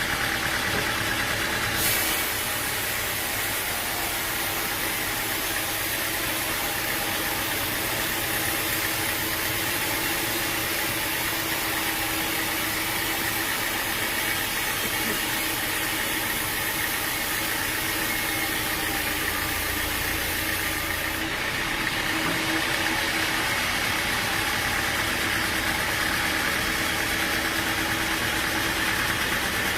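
Sawmill machinery running steadily with an engine hum and a steady mid-pitched tone. A higher hiss joins about two seconds in and drops away about two-thirds of the way through.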